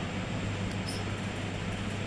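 Steady low hum with a faint hiss: the room's background noise, with a faint tick a little under a second in.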